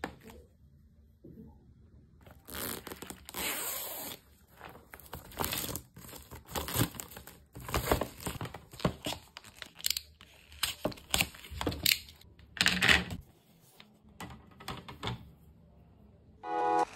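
Plastic packaging crinkling and tearing in irregular bursts as a laptop hard-shell case is handled and unwrapped.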